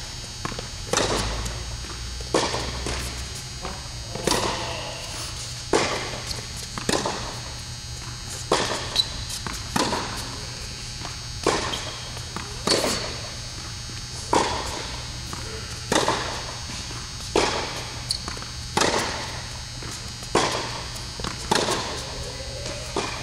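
Tennis balls struck by rackets and bouncing on an indoor hard court in a steady baseline rally, with a sharp hit about every second and a half.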